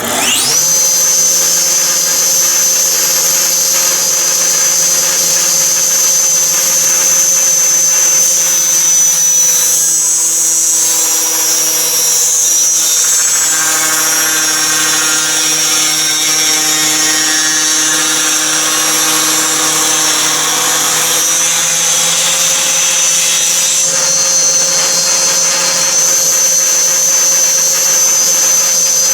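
Wood shaper with a stack of cutter blades spinning up with a quick rising whine, then running at speed with a steady high whine. Its pitch sags slightly and its tone roughens through the middle stretch, as under the load of a cut, then steadies again near the end.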